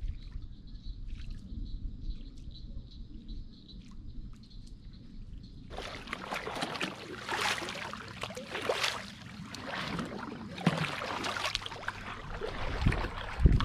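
Kayak paddle strokes in swamp water: the blades dip, splash and drip in surges roughly every second and a half, starting abruptly about six seconds in. Before that there is only a steady low rumble with a faint, high, steady trill.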